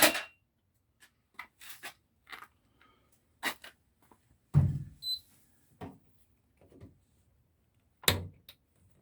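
Scattered clicks and knocks of hands working a washing machine's door and plastic door interlock. There is a sharp knock at the start, a heavier thump about four and a half seconds in, and another knock about eight seconds in.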